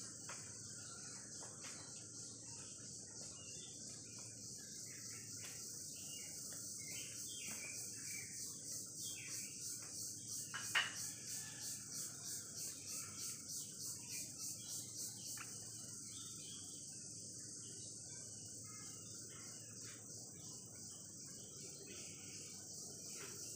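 Steady high-pitched insect chorus that pulses at about three beats a second through the middle stretch, with scattered faint bird chirps. A single sharp click about halfway through.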